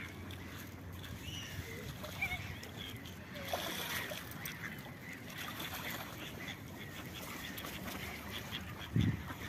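Mallards calling now and then with short quacks while they feed, and water splashing as some of them chase each other. A low thump near the end.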